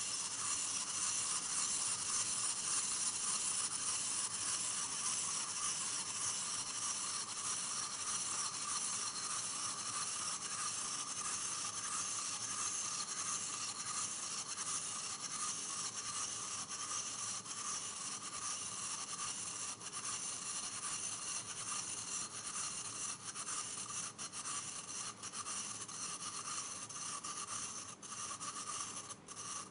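Wind-up plastic chick toy's clockwork spring motor whirring steadily as the toy waddles, with a fine rapid ticking and a few sharper clicks. It slowly gets quieter as the spring runs down.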